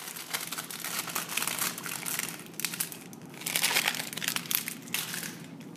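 Continuous crinkling and crackling rustle of something being handled, busiest about three and a half to four and a half seconds in.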